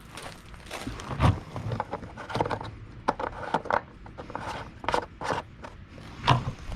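Footsteps and small handling knocks and scrapes: about a dozen sharp, irregular clicks and knocks spread over several seconds.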